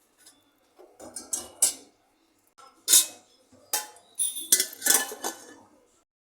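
Metal pot and kitchen utensils clinking and knocking against each other, a series of sharp knocks with short ringing. The loudest comes about three seconds in, and a cluster follows between four and a half and five and a half seconds.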